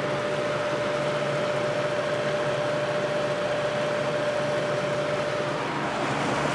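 Vintage 1983–84 Lasko box fan with a plastic Marco motor running: a steady rush of air with a pronounced motor hum, a steady tone that fades out near the end. The owner puts the hum down to the motor's many hours and to the single-piece motor mount, which makes the hum resonate through the whole frame.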